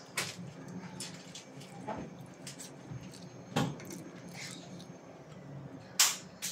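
Soft wet squishes and small clicks as a piece of curried fish is broken on a ladle and tasted, over a low steady hum; one sharper click about six seconds in.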